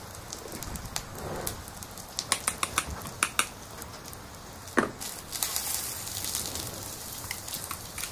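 Small plastic toy kitchen pieces, a ladle, pot and plate, clicking and tapping against each other in a quick run, then one sharp knock about five seconds in, followed by a soft hiss.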